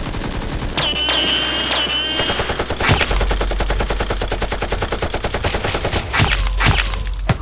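Rapid automatic gunfire sound effects, firing continuously in fast bursts, with a few louder single shots standing out in the second half. A high wavering tone sounds briefly about a second in.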